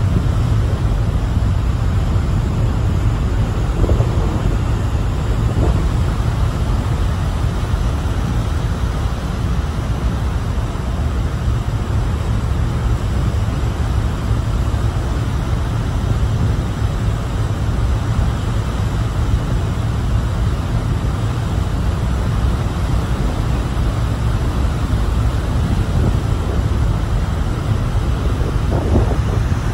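Steady low rumble of a large ferry under way, with wind hissing over the microphone on its open deck.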